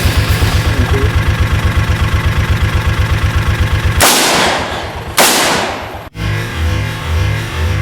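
Heavy metal music with a fast pounding beat cuts off about four seconds in. Two loud sudden bangs follow about a second apart, each trailing off over most of a second. After a short break, a vehicle engine runs with a low, uneven pulse.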